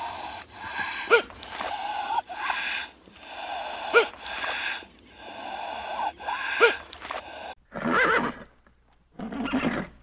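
Horse neighing and blowing: a run of harsh, breathy calls with sharp onsets, then two shorter separate calls near the end.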